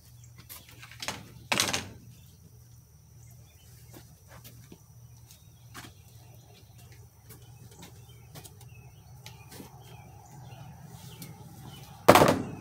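A few scattered knocks and clicks over a faint low hum. There are two louder thuds, one about one and a half seconds in and a sharper, louder one near the end.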